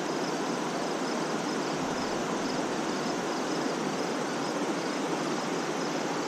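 Steady rushing of river water, with faint insects chirping in a repeating pattern above it.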